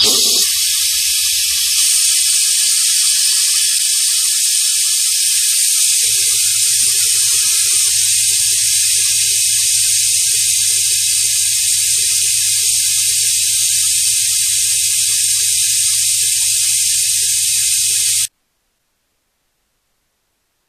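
Compressed air hissing through the venturi of a pneumatic FIRSTINFO oil extractor pump fitted with an added muffler, drawing vacuum at about 90 psi to suck engine oil up through the dipstick tube. It is a loud, steady hiss with a thin high whistle; a low rumble joins about six seconds in, and the sound cuts off suddenly near the end.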